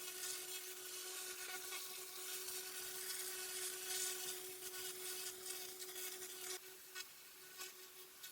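Pressure-washer jet blasting mud and grime off crazy paving: a steady spray hiss over the machine's steady hum. The spray cuts out about six and a half seconds in, leaving the hum and a few clicks.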